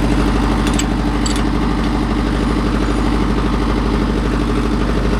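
Mahindra Yuvo Tech+ 585 tractor's four-cylinder diesel engine running at a steady speed.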